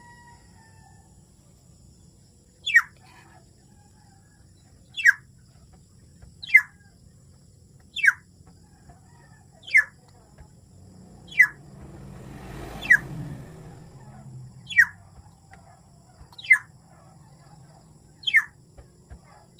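Black-naped oriole giving a short call that slides down in pitch, repeated about ten times at roughly one-and-a-half- to two-second intervals, with a soft rustle around the middle.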